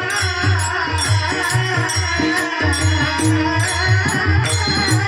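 Devotional bhajan music: a mridang drum plays a steady rhythm of deep bass strokes and ringing pitched strokes, with a bright metallic jangle of hand cymbals on the beat and sustained melodic tones.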